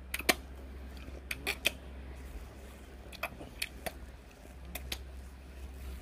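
A person licking the top of a frozen ice cream Blizzard: faint scattered mouth clicks, about ten in all, over a steady low hum.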